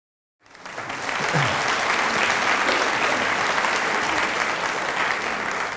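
Audience applauding, the clapping swelling in just after the start, holding steady and dying down near the end.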